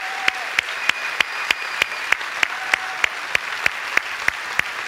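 Congregation applauding, with one close, loud clap standing out at an even pace of about three claps a second.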